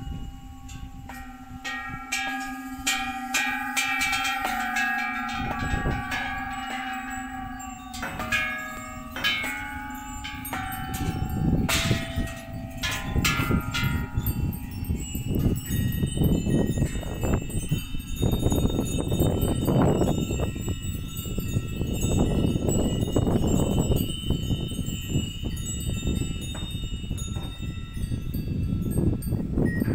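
A row of hanging metal Thai temple bells struck one after another with a wooden striker, each strike ringing on over the last. About halfway through the strikes stop, and a low rumbling noise takes over while faint ringing lingers.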